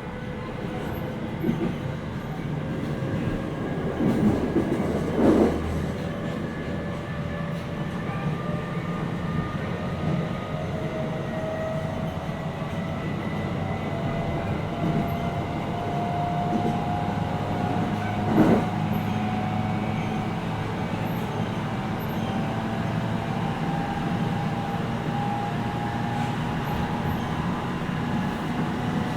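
JR East 701 series 5500-subseries electric train running, heard inside the motor car: a steady running rumble, with the electric motor whine slowly rising in pitch as the train gathers speed. A few short knocks come through, the loudest about five seconds in and about eighteen seconds in.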